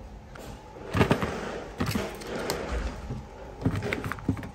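A series of knocks and clatters, several in a row, the loudest about a second in, over a light rustling background.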